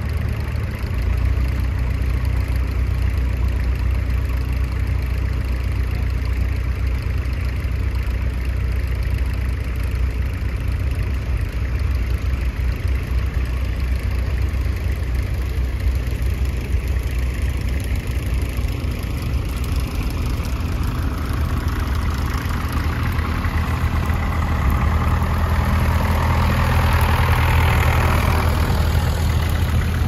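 Tractor engine running with a steady low drone, growing louder over the last few seconds.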